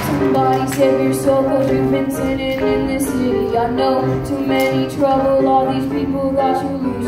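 Recorded pop song playing, with a female lead vocal over a steady beat.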